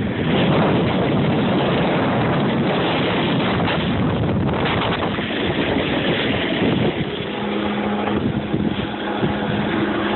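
Rushing wind on the microphone and a snowboard scraping over snow while riding. About seven seconds in, a steady low hum joins.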